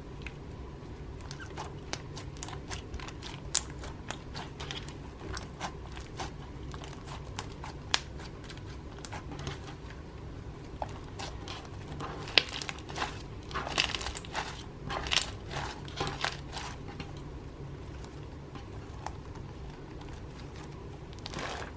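Slime being squeezed and pressed by hand, giving a string of crackling, crunchy pops and clicks that come thick and fast for a few seconds past the middle.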